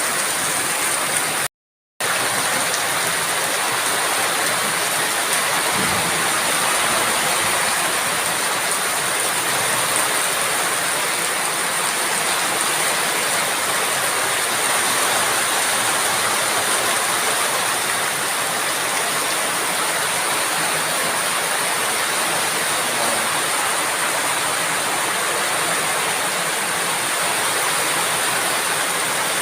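Steady rain falling, an even hiss with no change in strength. It cuts to silence for a moment about a second and a half in.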